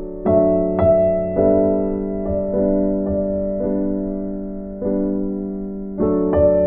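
Background music: slow, gentle piano chords, a new chord struck about every second and left to ring.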